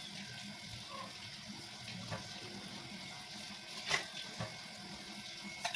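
Leaves being handled and dropped into a steel bowl: a few light clicks and rustles, with one sharper click about four seconds in, over a steady low hiss.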